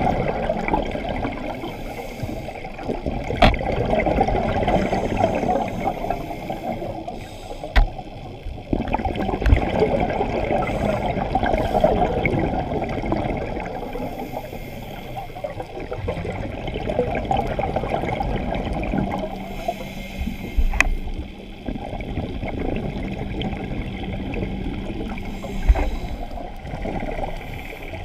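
Scuba diver's exhaled bubbles gurgling underwater, muffled through the camera housing, swelling and fading in surges every several seconds with a few sharp clicks.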